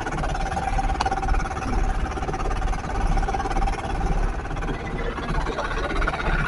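Motor of a wooden outrigger fishing boat running steadily under way, with the rush of water along the hull.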